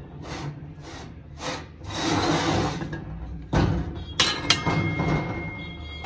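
A brass spittoon being handled and knocked on a shelf: rubbing and light knocks, then a couple of sharp metallic clinks about four seconds in, after which the brass keeps ringing with a steady high tone.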